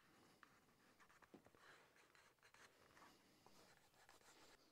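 Near silence, with faint scratchy rubbing and small ticks of damp leather being worked by hand.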